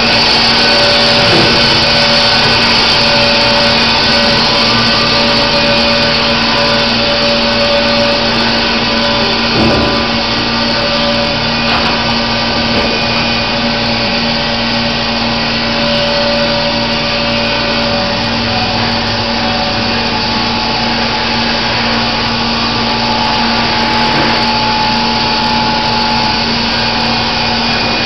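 Baker Products Super Streak band sawmill and its conveyors running: a loud, steady machine drone with a constant hum.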